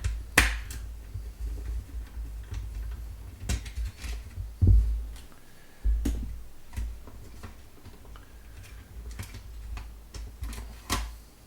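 Scattered clicks and knocks of fan parts being handled while a sensor assembly is taken apart, with low handling thumps in between.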